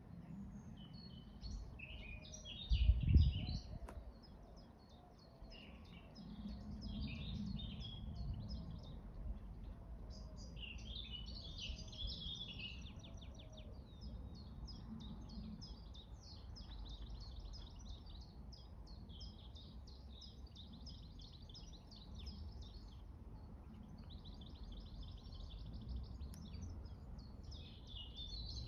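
Small birds chirping and twittering almost without a break, in quick runs of high notes and rapid trills, over a low steady rumble. About three seconds in, a loud low thump.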